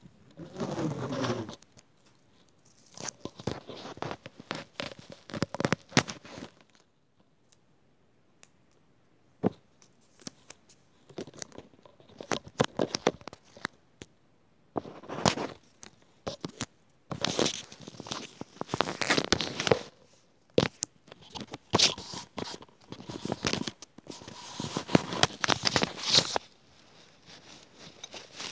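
Close-up crinkling, crunching and crackling as something is handled right at the microphone for ASMR, in irregular bursts with short pauses between them.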